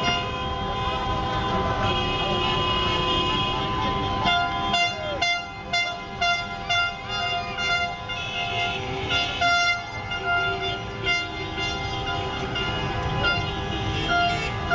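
Many car horns honking in celebration: some held in long blasts, others tooted in quick repeated bursts from about four seconds in, over the noise of slow traffic.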